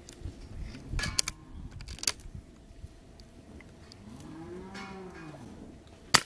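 A cow moos once about four seconds in, a long call that rises and then falls in pitch, after a few faint clicks. Near the end a suppressed Brocock Concept XR PCP air rifle fires one sharp shot, the loudest sound here.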